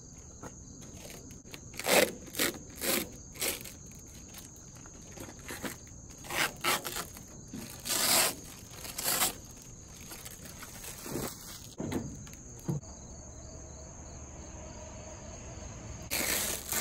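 Clear protective plastic film being peeled off a new taillight lens and crumpled, in a string of short crinkling rips, over a steady high drone of insects.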